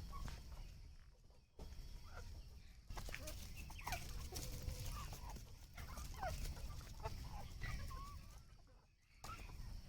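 Desi chickens in a coop clucking and calling: scattered short calls over a low steady rumble, with the sound cutting out abruptly a few times.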